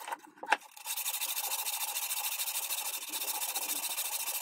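Sandpaper rubbed quickly back and forth by hand along the edge of a walnut cutting board: a steady, even scratchy rasp starting about a second in, after a few short knocks.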